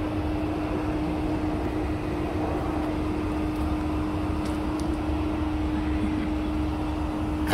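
A steady mechanical hum holding one constant low tone over a low rumble.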